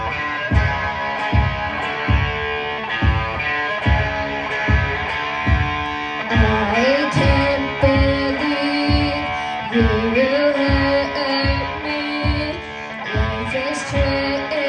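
Live band music: electric guitar and a drum kit keep a steady beat, instrumental at first, then a girl's singing voice comes in about six seconds in.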